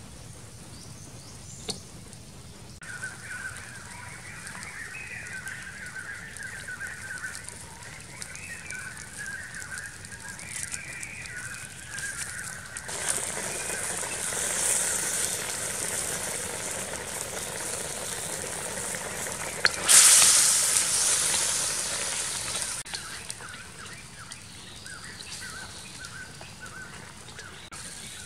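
Soup bubbling and sizzling in a steel wok over a wood fire as fresh leaves are stirred in with a ladle. A hiss swells about halfway through, with a sharp knock and the loudest burst about two-thirds through, then it fades. Birds chirp in the background during the first part.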